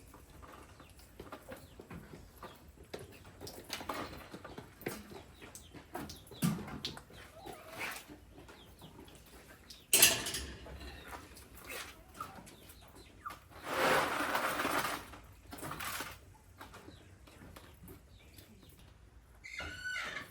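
A rooster being handled: scattered clucks and rustles, a sharp knock about halfway, and a longer burst of wing flapping a few seconds later.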